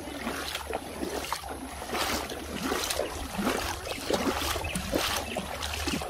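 Shallow creek water splashing and sloshing in quick, irregular bursts.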